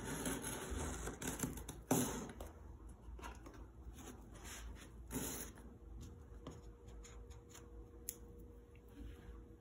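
Utility knife cutting packing tape and scraping along a cardboard box in a few short scratchy strokes, the strongest near the start, about two seconds in and about halfway. After that come quieter cardboard handling sounds and a few small clicks.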